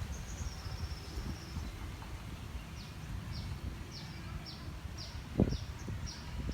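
A songbird calling: a brief high warble, then a run of short, high, falling chirps about twice a second, over a low rumble of wind. One loud thump comes about five seconds in.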